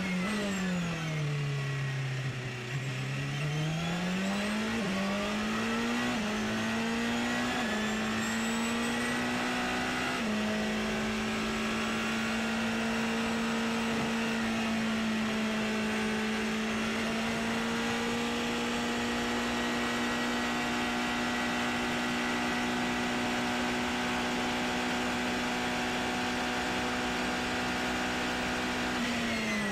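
Onboard sound of a Porsche 919 Hybrid's turbocharged 2.0-litre V4 race engine. The engine note falls as the car slows for a corner, climbs in steps through several upshifts, then holds a steady high note at full throttle, dropping again with a downshift at the very end.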